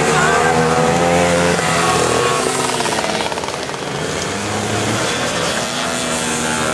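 A pack of small moped and dirt-bike engines revving together as the riders pull away from a mass start, several engine notes overlapping and rising and falling in pitch.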